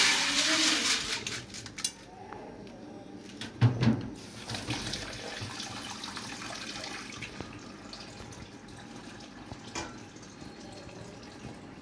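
Beans poured from a plastic colander into an aluminium pot with a loud rattling rush, then a single clank of the pot about four seconds in, followed by tap water running steadily into the pot at the kitchen sink.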